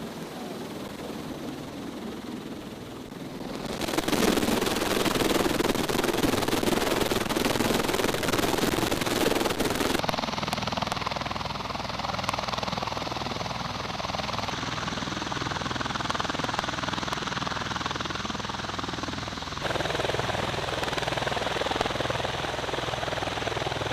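MV-22 Osprey tiltrotor running, a loud steady rotor and turboshaft engine noise with a low hum beneath. The sound jumps abruptly in level and tone about four, ten and twenty seconds in.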